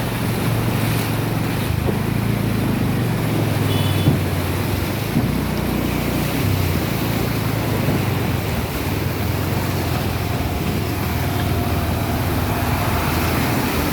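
Steady rushing noise of wind on the microphone and floodwater, with a vehicle engine running low underneath.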